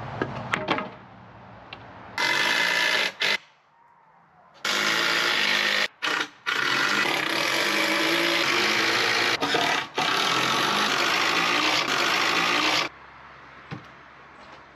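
Electric power saw cutting wood: a short cut about two seconds in, then a long cut of about eight seconds with two brief breaks, which stops sharply near the end. A few knocks come at the very start.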